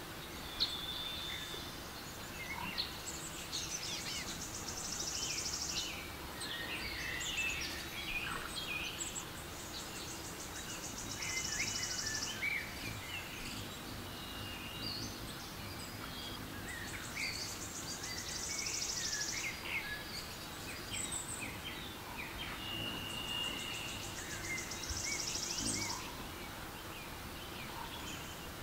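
Recorded forest soundscape from a relaxation app: birds chirping and whistling, with an insect's high rapid buzz that comes in spells of two or three seconds and returns several times over a low steady background hush.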